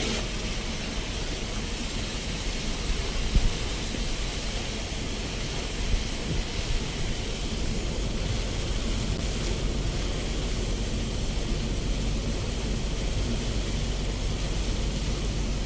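Steady rain falling, an even hiss with a low rumble underneath, and a couple of small knocks a few seconds in.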